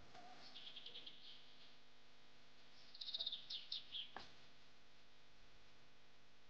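Faint high bird chirps in quick runs of short notes, twice, with a single sharp click a little after the second run.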